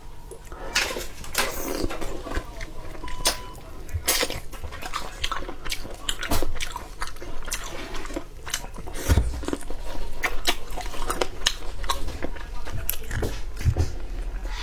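Close-miked eating sounds: biting and chewing with many irregular, sharp mouth clicks and smacks.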